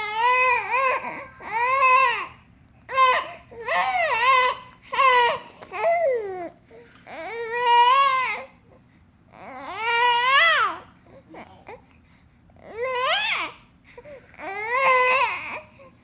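A parrot making a run of about nine separate voice-like calls, each under a second long, with wavering, rising-and-falling pitch.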